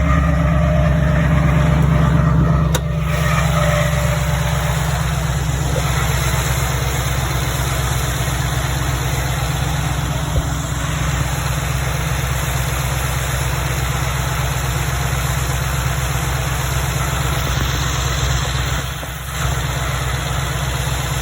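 Ford F-150 pickup engine running steadily with a low rumble, carrying the grinding, screeching noise that the owner is asking about. A faint high whine sits over it for the first three seconds.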